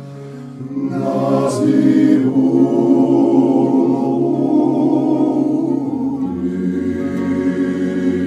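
Georgian polyphonic choir singing in several parts, holding long chords over a low sustained bass. The bass drops to a lower note about six seconds in.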